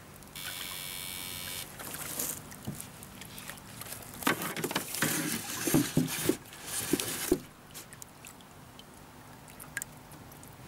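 Pond water splashing and sloshing as a landing net is swept through it and lifted out dripping, with a short steady hiss near the start and a run of louder splashes from about four to seven seconds in.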